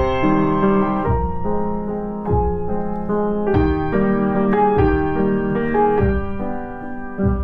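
Background piano music: a slow, gentle melody of held notes that change about once a second.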